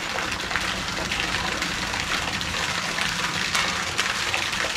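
Steady rushing and splashing of water: an even hiss with many small splashes.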